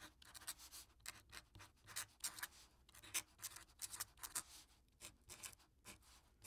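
Marker pen scratching across a drawing surface in many short, irregular strokes, faint.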